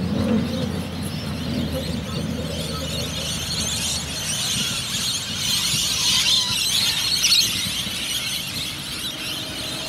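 Wheels of a loaded sugar cane train's cane bins squealing against the rails as the train rolls along, over a low rumble that fades around the middle. The squeal swells to its loudest a little past the middle.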